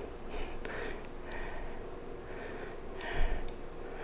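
Faint small clicks and handling noise as a garage door opener belt's turnbuckle is threaded together by hand, with one dull bump about three seconds in.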